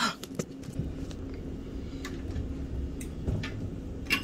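Kitchen handling sounds: a few light clicks and knocks over a low rumble, then about four seconds in a sharper clink that rings briefly.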